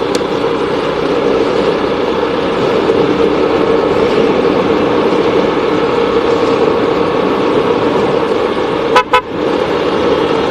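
Steady running noise of a vehicle on the road, engine and wind together, with two quick horn toots about nine seconds in.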